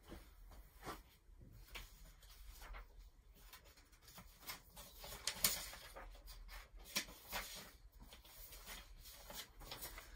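Faint, irregular clicks and taps with light rustling, the sharpest about five and a half seconds in: small handling noises at a desk.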